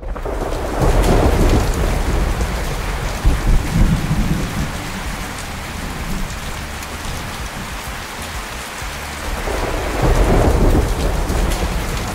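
Thunderstorm: steady heavy rain, with rolling thunder swelling about a second in and again near the end.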